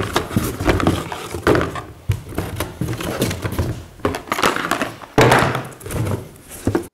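Cardboard box rustling and hard plastic knocking as a black plastic welding face shield is taken out of its packaging and set on a workbench, with a loud thunk about five seconds in.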